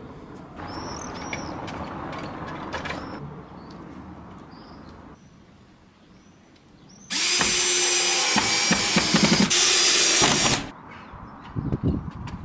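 Cordless drill driving a screw into a wooden sign: the motor runs in one burst of about three and a half seconds, starting about seven seconds in, easing off briefly once, then stopping.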